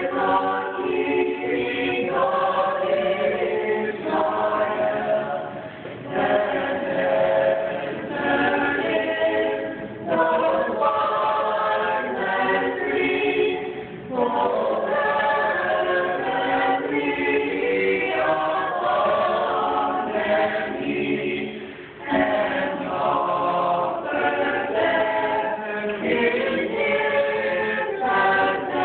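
Small mixed choir of young male and female voices singing a Christmas carol a cappella in harmony, in long phrases with short breaks for breath.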